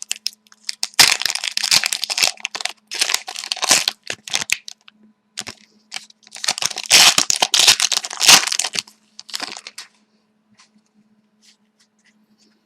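A hockey card pack wrapper being torn open and crinkled in several bursts of rustling that die away about ten seconds in. A faint steady low hum runs underneath.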